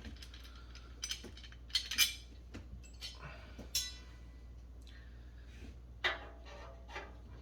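Metal parts of a camping wood stove clinking and clattering as its legs, bolts and nuts are handled: scattered sharp, ringing clinks, the loudest about two seconds in.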